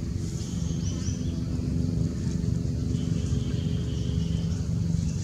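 Steady low engine hum, like a motor vehicle running nearby, with a few faint high chirps about half a second to a second in.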